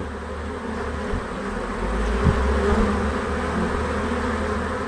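A swarm of honey bees clustered on a wall, many bees buzzing at once in a steady, dense hum.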